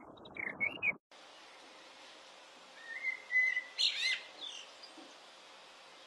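Male common blackbird singing: a fluting whistled phrase about three seconds in that breaks into a high, squeaky twitter. Before that, a few short bird notes are cut off suddenly at about one second.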